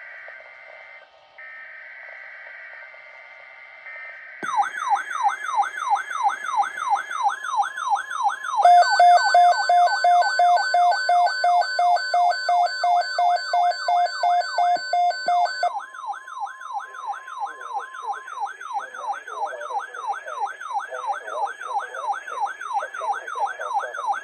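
NOAA Weather Radio alert for a tornado watch. It opens with buzzy two-tone SAME data bursts, then a weather alert radio sounds its alarm as a fast, repeating up-and-down siren sweep. For about seven seconds a pulsing beep and the steady 1050 Hz warning tone sound along with it, and near the end a broadcast voice starts under the siren.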